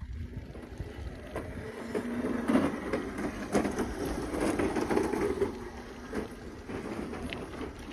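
Wind and rumbling handling noise on a phone microphone moving along a bumpy street, a steady rustling haze with small knocks, heaviest in the middle few seconds.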